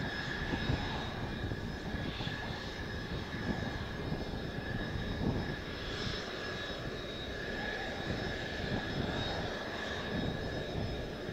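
Jet engines idling: a Mitsubishi F-2B's single turbofan with a T-4 trainer's engines alongside. They make a steady whine with several high tones over a low rumble. Gusts of wind buffet the microphone.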